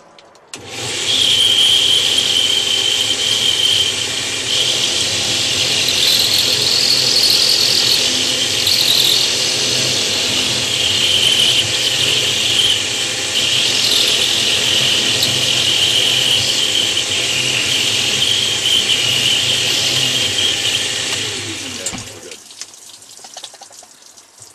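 Electric plunge router with a diamond bit grinding out the centre of a natural stone tile: a loud, steady high whine with a squeal over the cutting. It starts about half a second in and winds down about 22 seconds in.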